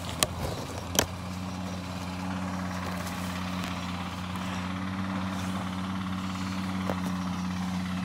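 An engine running steadily with an even, low hum. Two sharp snaps come near the start.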